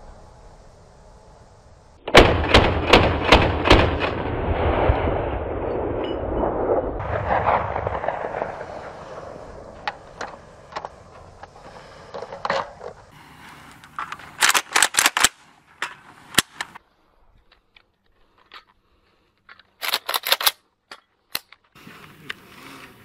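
A 5.45 mm VULKAN-M bullpup AK rifle fired without a suppressor, through its muzzle brake, with ordinary cartridges. First comes a rapid string of about six shots with a long rolling echo. Later there are two short quick strings of four or five shots each.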